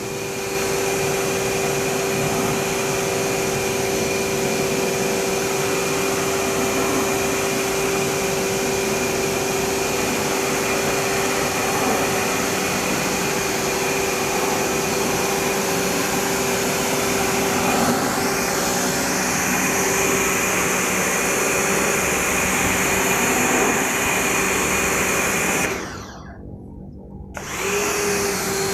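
A motor-driven machine running steadily with a constant hum over a rushing noise, cutting out for about a second and a half near the end and then starting again.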